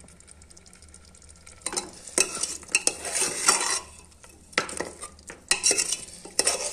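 Steel ladle stirring pork leg pieces in thick gravy in an aluminium pressure cooker. It scrapes and knocks against the pot's sides over a sizzle. The stirring starts a little under two seconds in, after a short stretch of low sizzling.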